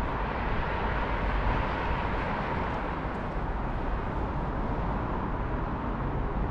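Steady outdoor road traffic noise: a continuous rush of passing vehicles with a low rumble.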